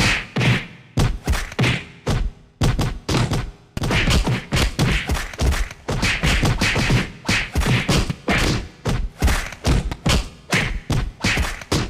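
Fight sound effects: a rapid series of punches and body hits, dull thuds and sharper whacks, two or three a second with short gaps between runs.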